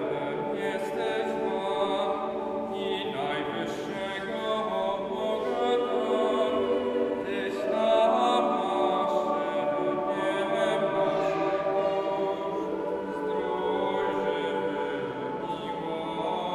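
Mixed choir of men's and women's voices singing unaccompanied in sustained chords, swelling louder about eight seconds in.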